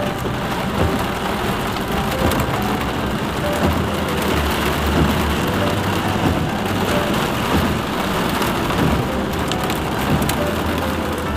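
Heavy rain beating on a car's roof and windshield, heard from inside the cabin, over a steady low rumble of the car moving along the flooded road.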